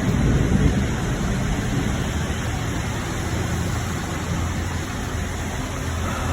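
Distant thunder rumbling low for about the first second, then fading into a steady outdoor hiss.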